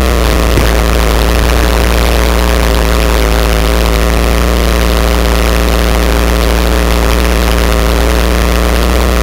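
Single-cylinder pit bike engine idling steadily close to the onboard microphone, with no revving, its pitch holding level.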